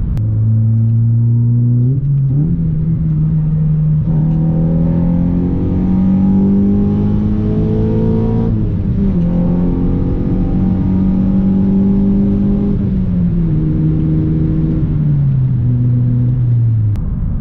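Honda Civic Si's K24 four-cylinder engine running under load. Its pitch jumps up about two seconds in and climbs, dips briefly midway, holds steady, then falls away near the end as the revs drop.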